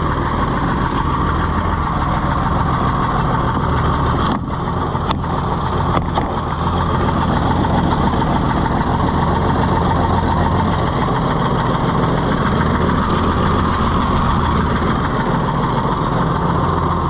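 Oliver 70 tractor's six-cylinder engine running steadily on its own, with a brief dip about four seconds in. The engine still has an exhaust leak and, the owner believes, hardly any governor action.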